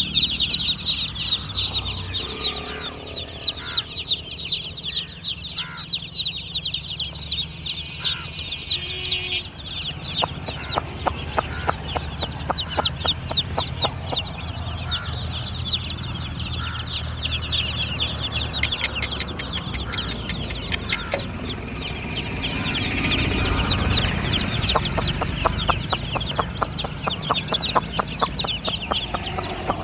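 A group of baby chicks cheeping without pause: a dense chorus of short, high-pitched peeps. A steady low hum runs underneath.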